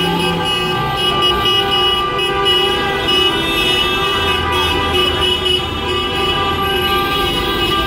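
Many car horns sounding at once in heavy street traffic, overlapping and held without a break: celebratory honking after a Russian victory.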